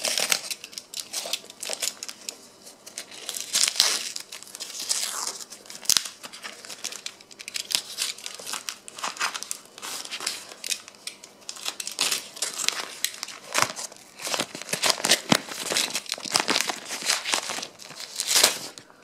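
Taped newspaper wrapping being slit with a small utility knife and torn and crumpled off a cardboard box: irregular bursts of crinkling and tearing paper.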